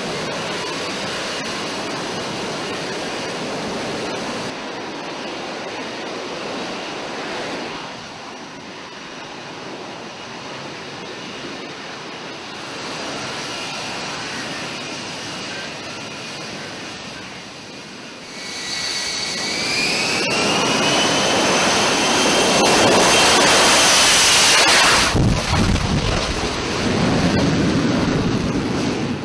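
F-35B jet engine and lift fan running in hover and slow flight: a steady rushing jet noise. About two-thirds of the way through a whine rises in pitch as the noise swells to its loudest, then cuts off suddenly and a lower rumble follows.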